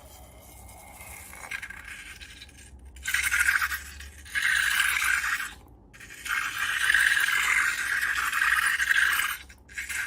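A scraping, hissing noise that comes in three long stretches with short breaks between them, the longest near the end.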